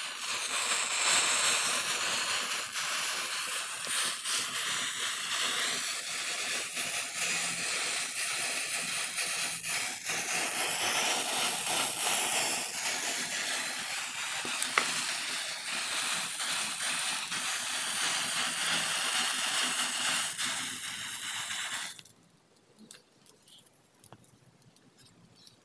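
Matchstick heads flaring one after another in a chain: a dense hissing fizz with fine crackling. It cuts off suddenly about 22 seconds in, leaving only faint scattered crackles of the burning sticks.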